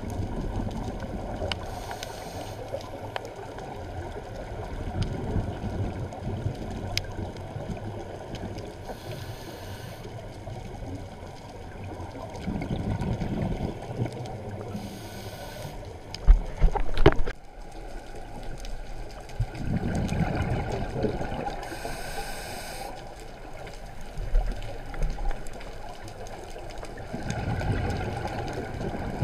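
A scuba diver breathing through a regulator: a short hissing inhale several times, every six or seven seconds, each followed by a low rush of exhaled bubbles. A pair of loud knocks comes about halfway through.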